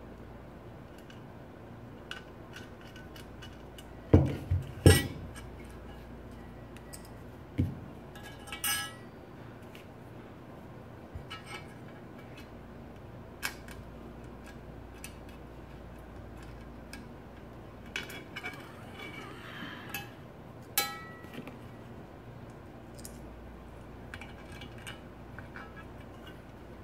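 Knocks and light metallic clinks from handling the parts of a Stirling engine kit and setting them down on a bench. A few loud knocks come about four to five seconds in, with scattered lighter clinks and clicks after.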